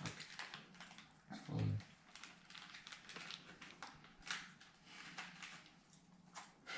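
Faint crunching and small clicks of crunchy snack peas being chewed, with a short low sound about a second and a half in.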